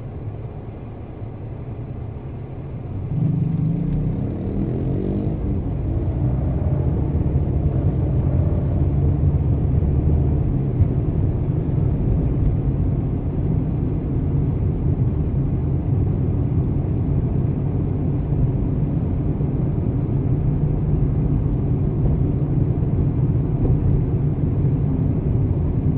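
Car being driven on a city street: steady engine and tyre rumble that gets louder about three seconds in as it picks up speed, with a rising engine note over the next few seconds.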